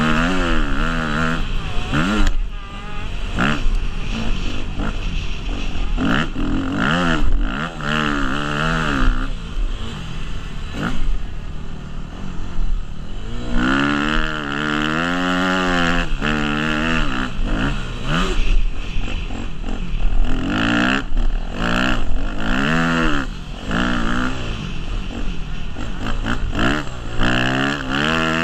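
Yamaha YZ250F four-stroke single-cylinder motocross engine being ridden hard. Its pitch rises and falls again and again as the throttle opens and closes and it shifts through the gears.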